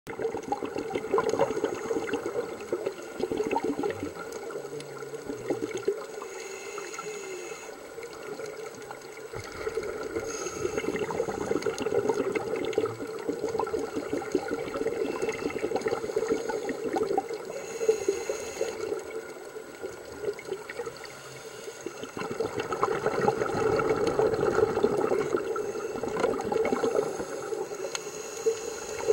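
Underwater sound over a shallow coral reef: a continuous wash of moving water with dense fine crackling, swelling louder and fading back a few times.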